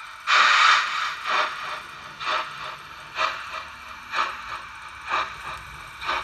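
Märklin HO-scale steam locomotive's sound decoder pulling away from a standstill: a long, loud release of steam, then slow steam chuffs about once a second.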